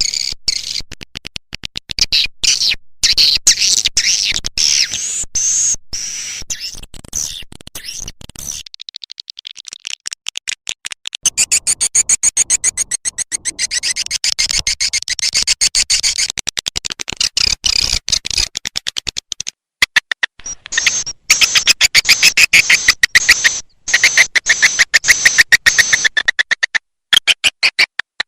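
Swiftlet lure call: dense rapid twittering of edible-nest swiftlets, a fast run of clicks and high wavering chirps, played to draw swiftlets into a nesting house. It dips briefly about a third of the way in, then resumes just as dense.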